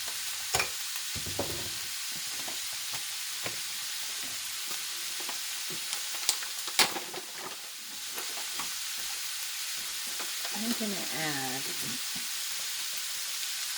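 Food frying in a cast iron pan at fairly high heat, a steady sizzling hiss, with scattered sharp clicks and knocks of kitchen utensils and containers being handled.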